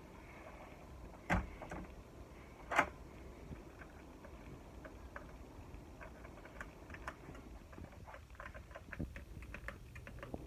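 Two sharp knocks in the first three seconds, then a run of faint, quick clicks and taps in the second half.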